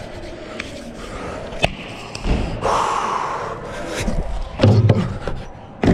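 Hands rustling in a chalk bag, with a few sharp knocks and a heavier thump near the end, in a large indoor training hall.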